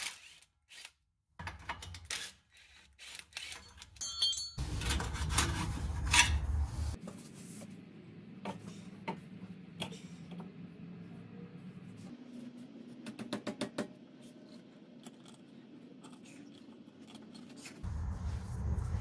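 Quiet, scattered metallic clicks and clinks of hand tools and parts being handled on a car's exhaust pipe and clamp underneath the car, with a short run of quick, evenly spaced clicks near the middle.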